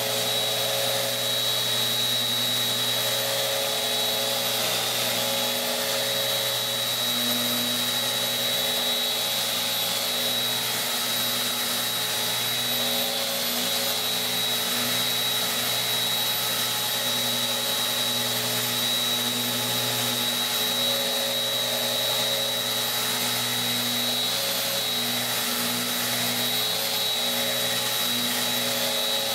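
Bosch GET 75-150 eccentric sander with a mesh sanding disc running steadily against a pine board, a constant high whine over the motor's hum.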